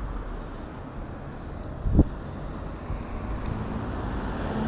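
Street traffic noise with wind on the microphone, and a single dull thump about two seconds in.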